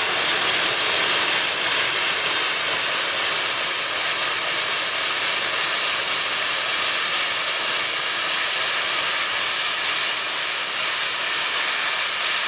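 Steam blowing off from a fired-up steam engine's boiler in a steady, unbroken hiss.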